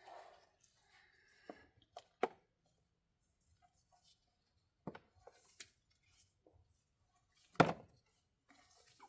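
Scattered clicks and knocks of hand tools and metal parts being handled while the oil drain plug is being refitted, with one louder knock about three-quarters of the way through.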